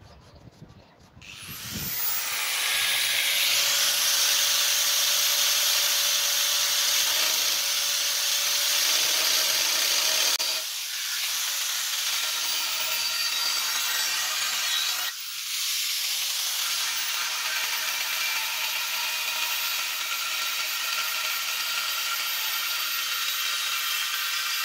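Angle grinder with a thin cut-off disc starting up a little over a second in and cutting through a steel circular saw blade: a loud, steady, hissing grind with a whine running through it. The sound dips briefly twice as the cut eases off.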